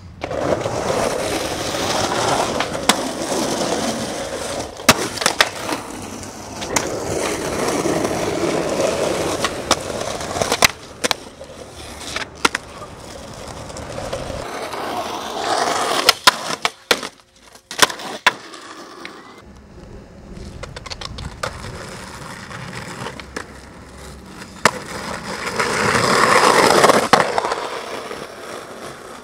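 Skateboard wheels rolling over rough asphalt, a rush that swells and fades, broken by sharp clacks of the board popping and landing. The sound drops out briefly a few times.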